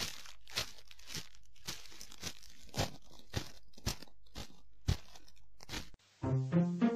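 Footsteps on a dry, leaf-littered dirt path, about two steps a second, over a steady hiss. Keyboard music starts near the end.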